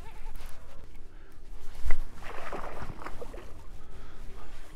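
A hooked fish being fought beside a boat: water sloshing and splashing in bursts, over a steady low rumble of wind on the microphone, with a single sharp knock about two seconds in.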